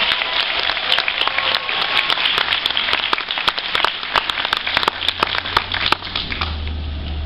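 Audience applauding, with many sharp individual claps; the applause thins out about six seconds in.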